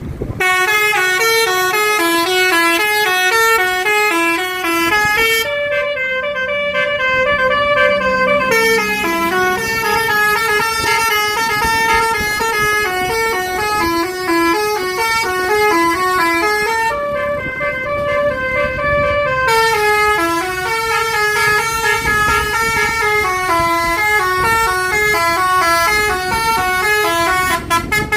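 A bus's telolet horn, a set of electrically switched air horns, playing a long tune of short stepped notes. The tune starts over about halfway through.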